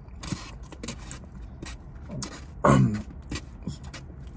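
Close-up chewing and wet mouth sounds of someone eating, with scattered smacks and clicks and a short hummed 'mm' partway through.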